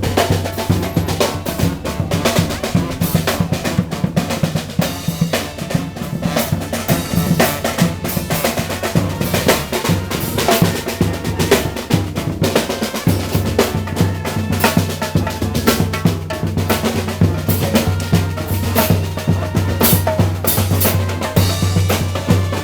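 Street marching band playing loudly, its snare and bass drums beating a steady, driving rhythm.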